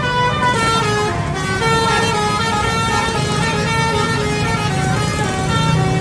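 A bus's Basuri musical horn playing a 'telolet' tune: a run of loud, steady horn notes stepping from pitch to pitch every half second or so.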